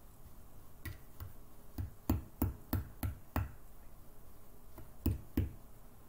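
Metal spoon knocking and scraping against a small glass bowl while stirring damp sand: a run of sharp taps, about three a second for a couple of seconds, then two more near the end.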